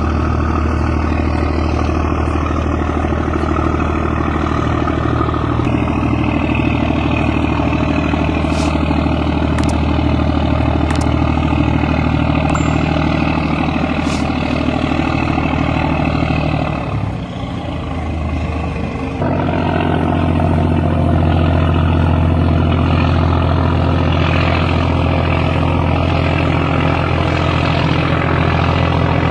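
Heavy ship engines of a river ferryboat running steadily under way, with a few faint clicks and a short dip in the engine sound about seventeen seconds in.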